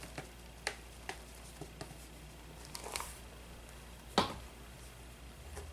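Light rustling and a few soft, scattered clicks as potting substrate, a topsoil and peat moss mix, is handled and added to a tarantula enclosure. One sharp knock comes about four seconds in.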